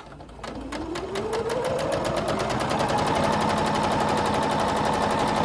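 Electric sewing machine starting up and stitching: its motor whine rises in pitch over the first two seconds or so, then runs steady at speed with rapid, even needle strokes. It is top-stitching close to the edge of a pleated cotton face mask, closing the turning opening.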